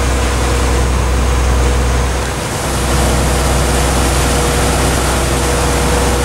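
Small cruise ship's engine running steadily under way: a loud, even low rumble with a thin steady whine above it and a hiss of wind and water. The rumble dips briefly about two and a half seconds in.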